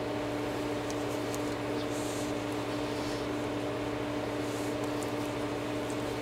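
A steady mechanical hum made of several even, unchanging tones, with faint small clicks and soft rustles of wiring and packing being handled.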